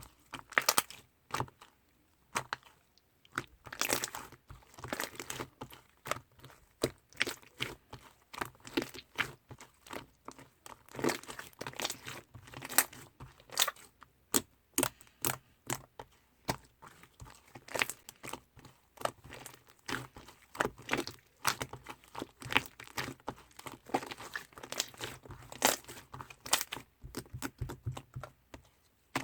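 Slime being squeezed and played with by hand, making a dense, irregular run of sharp crackling clicks and pops.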